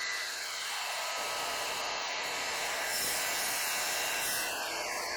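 DeWalt DWS779 sliding compound miter saw, its motor running at full speed with a steady whine as the blade makes a test cut.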